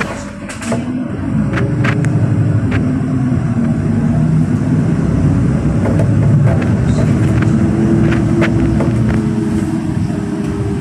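NefAZ 5299 city bus under way, heard from inside: its engine note climbs, drops back and climbs again as the bus gathers speed, over a hiss of tyres on a wet road. A few short rattles come in the first few seconds.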